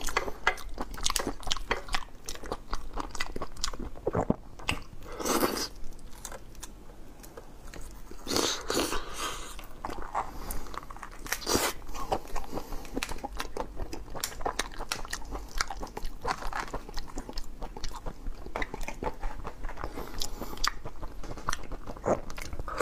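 Close-miked chewing and biting of shrimp meat, with many small wet mouth clicks throughout. Three longer, louder noises stand out a few seconds apart in the first half.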